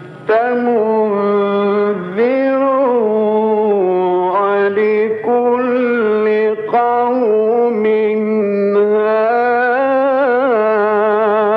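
A male reciter chanting the Quran in a slow melodic style. He sings long, ornamented held notes whose pitch wavers and glides through a single drawn-out phrase, with a short catch about two seconds in.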